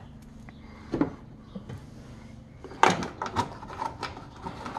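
Plastic push-pin clips being rummaged for in a plastic cup holder: scattered clicks and knocks, with a burst of rattling about three seconds in.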